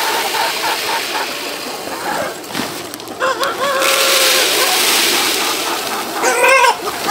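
A large flock of chickens clucking, with a rooster crowing in one long call from about three seconds in and another loud call near the end, over a steady hiss.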